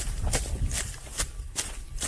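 Footsteps crunching through a thick layer of dry fallen leaves, a crisp crackle at each step, about two to three steps a second.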